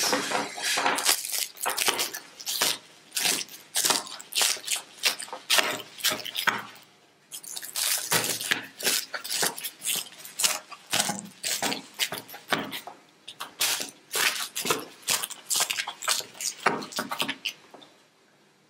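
A knife sawing through a tray of freshly baked, crisp layered börek pastry, making rapid crackling crunches. There is a brief pause about six to seven seconds in, and the crunching stops about a second before the end. The loud crackle is the sign of the thin, flaky layers baked crisp.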